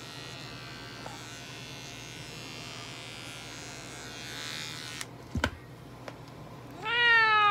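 Electric pet clippers buzz steadily while shaving fur on a cat's foreleg, then switch off about five seconds in, followed by a sharp click. Near the end the cat gives one long, loud meow that falls slightly in pitch.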